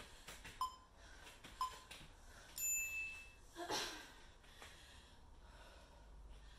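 Workout interval timer beeping the countdown: two short beeps a second apart, then one longer, higher beep marking the start of the next exercise interval. About a second later comes a sharp, breathy exhale from the exerciser, out of breath from the warm-up.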